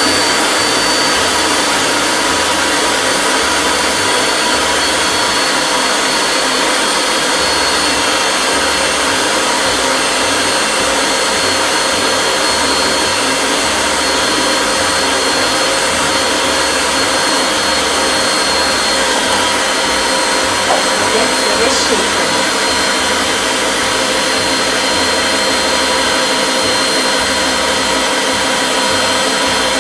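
Electric stand mixer running steadily, beating cake batter in its bowl, with a brief knock about two-thirds of the way in.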